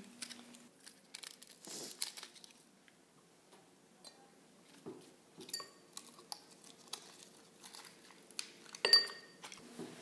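An effervescent antacid tablet fizzing in a glass cylinder of red cabbage juice: faint, scattered crackling and popping of foam bubbles as the froth rises and spills over, with a louder brief rustle near the end.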